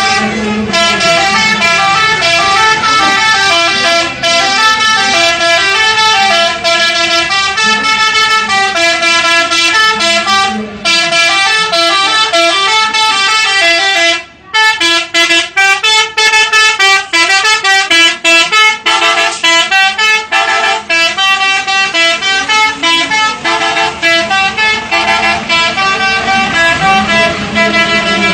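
Multi-tone 'telolet' bus air horn playing a melody, one steady note stepping to the next. About halfway there is a brief break, after which the notes come short and quick before settling into longer notes again.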